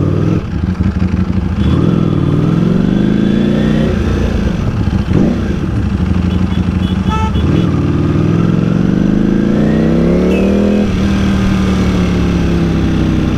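Ducati Panigale V4 S's V4 engine accelerating in town traffic. The revs climb, drop at a gear change about four seconds in, and climb again before dropping at the next shift a little before the end, then hold steady.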